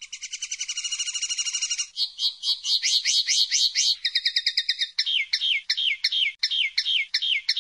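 Common linnet singing one long song of changing phrases: a fast, even trill, then quick notes swooping up and down, a second fast trill about four seconds in, and a run of downward-slurred notes about three a second.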